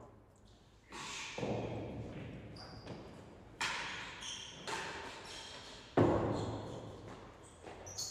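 A real tennis rally: the hard ball is served and then knocks off rackets, walls and the wooden court, about seven sharp knocks at uneven spacing. Each one echoes in the large hall, and the loudest comes about six seconds in.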